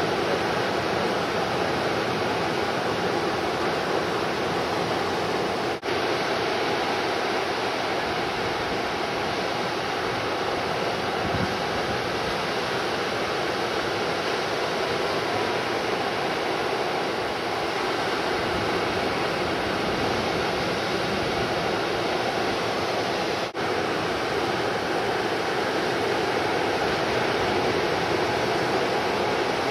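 Steady, even noise of breaking ocean surf, briefly dipping twice, about six seconds in and again near twenty-four seconds.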